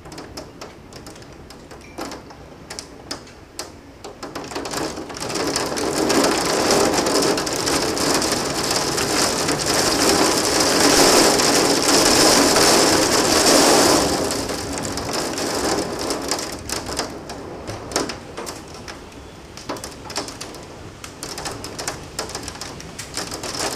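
Thunderstorm rain pouring down. It starts as scattered drop hits, swells into a heavy downpour a few seconds in, then eases about two-thirds of the way through, leaving many sharp individual drop hits.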